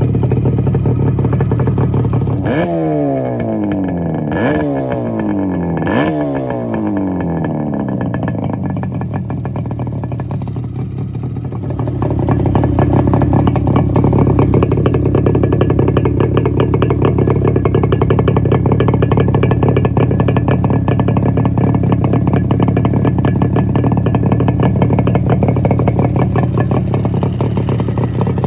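Yamaha RD250 two-stroke twin riding with the silencer baffle removed from its stock mufflers, so the exhaust is loud and raw. Three times in quick succession the revs jump and fall away, then after a softer spell the engine runs louder and steady.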